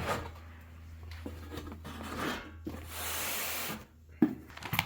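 Packaging being handled during an unboxing: rubbing and scraping of the packing material, a hiss of something sliding for about a second near the middle, then a sharp knock near the end.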